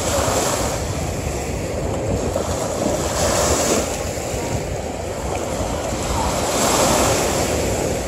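Small waves washing up on a sandy beach, the fizz of breaking foam swelling about every three seconds. Wind rumbles on the microphone underneath.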